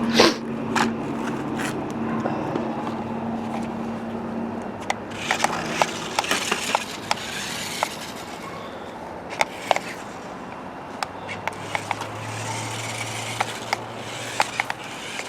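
Small electric drive motor of a 1:14-scale four-wheel-drive RC stunt car running with a steady whine as the car drives back and forth, its tyres rolling and scraping on the ground, with scattered clicks and knocks.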